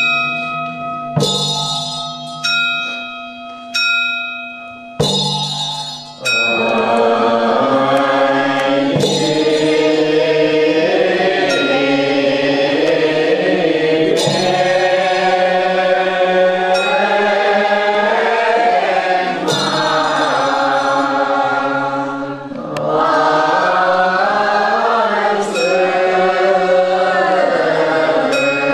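Four strikes of a Buddhist ritual bell, each left to ring out, then from about six seconds in a group chanting a Chinese Buddhist praise liturgy together in slow sung phrases, with a short break about twenty-two seconds in.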